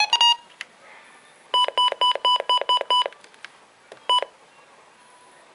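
Midland WR-300 weather radio's key-press beeps as its menu buttons are pressed: a quick beep or two at the start, a run of seven short beeps at about four a second, then a single beep.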